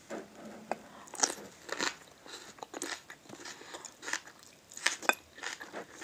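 A person biting into and chewing a grilled wild leek close to the mouth, with irregular soft crunches and wet mouth clicks, a few sharper crunches standing out.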